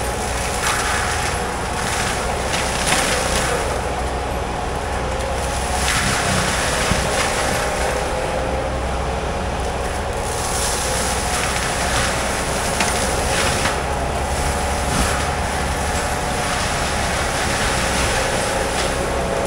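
Tracked skid steer with a forestry mulcher head running steadily at high revs, with a steady whine. Brief louder surges come every few seconds as it cuts into brush.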